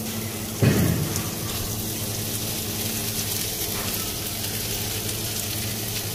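Raw Kaima rice frying in ghee and oil in a large, heavy steel pot, with a steady sizzle as salt is sprinkled over it. A dull thump comes about two-thirds of a second in.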